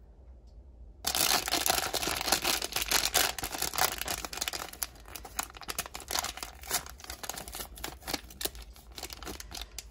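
A small toy surprise packet being torn open and its wrapping crinkled by hand, starting about a second in; the crackling is busiest at first and thins out toward the end.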